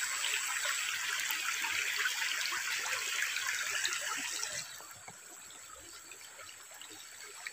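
Shallow stream trickling over stones, a steady crackling water noise that drops away to a fainter trickle about four and a half seconds in.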